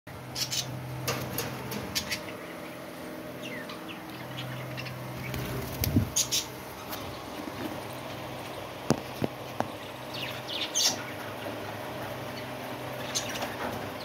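Aviary budgerigars chirping in short, scattered calls, with some wing flutters, over a steady low hum. A few sharp knocks come about two-thirds of the way through.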